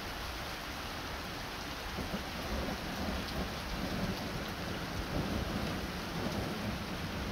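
Hail and rain falling steadily on lawn, pavement and flagstones, an even hiss. A low rumble builds about two seconds in and stays under it.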